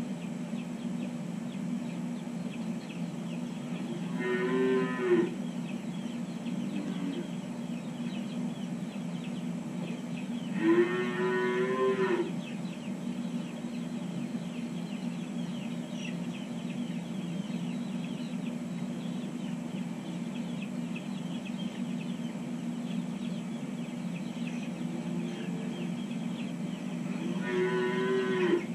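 Dairy calves bawling in their pens: three separate calls, one about four seconds in, a longer one around ten to twelve seconds, and one near the end. A steady low hum runs underneath.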